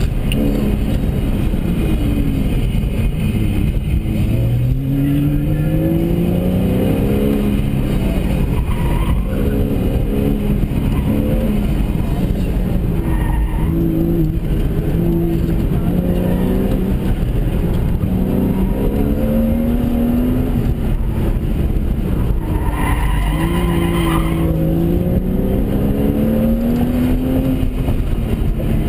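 2006 Porsche Cayman S's mid-mounted flat-six engine, heard from inside the cabin, repeatedly climbing in pitch under hard acceleration and falling back as the car works through an autocross course. The tyres squeal briefly about three quarters of the way through.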